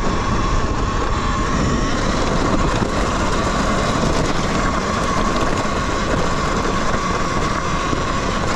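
Talaria Sting electric dirt bike riding over a bumpy trail: a steady high whine from its electric drive over wind and tyre noise. It is so quiet, with no banging from the battery, which has just been secured in a modified battery tray.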